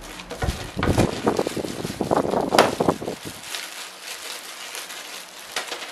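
Clear plastic bag crinkling and rustling as a small part is unwrapped by hand, with two low thumps in the first second. After about three seconds it goes quieter, with scattered crackles.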